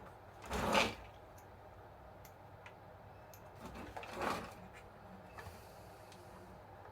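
Two short scraping, sliding sounds, one about half a second in and one about four seconds in, with a few light clicks between them, as the plastic parts of a toy RC bulldozer are handled.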